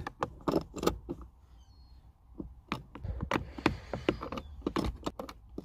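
Irregular sharp clicks and taps of a hand tool working the handbrake cable adjuster nut inside a car's centre console, taking up slack in a stretched cable. There is a short lull about a second in.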